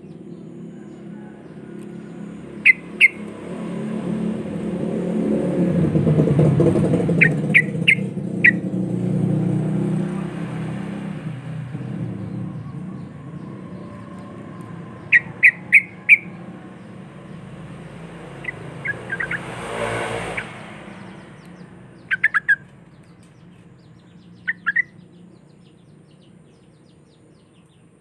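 Yellow-vented bulbul calling in short quick phrases of two to four notes, repeated every few seconds. Underneath, a low vehicle rumble swells and fades between about four and ten seconds in, and another passing noise peaks near the twenty-second mark.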